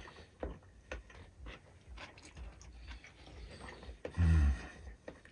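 A man eating: a fork clicking and scraping against a plate, with chewing. About four seconds in comes a short, low hum-like sound.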